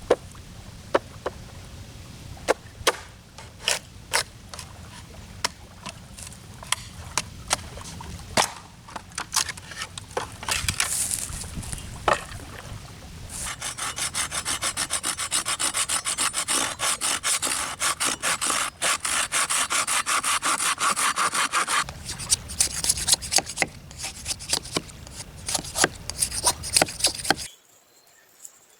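Wood being worked by hand: scattered knocks and taps, then a long run of rapid, even saw strokes through the middle, then more knocks, ending abruptly.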